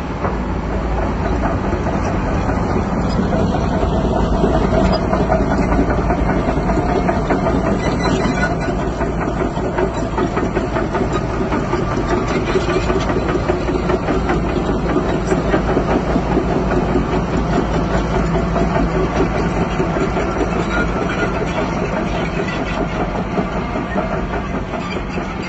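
Crawler bulldozer's diesel engine running steadily, with a continuous metallic rattle of its tracks.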